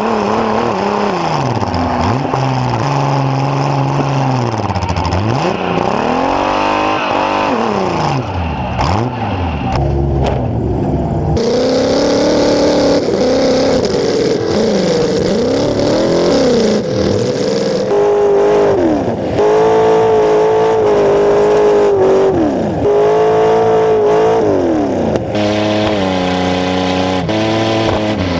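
Demolition derby car engines heard from just above the open engine bay, revving up and down again and again as the cars back up and charge, the pitch rising and falling every second or two. The sound changes abruptly a few times as different cars' footage is cut together.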